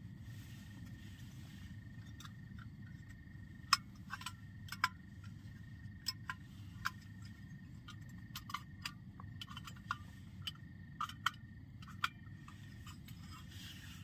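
Irregular sharp clicks and taps as small camping gear is handled, over a steady low hum and a faint steady high tone.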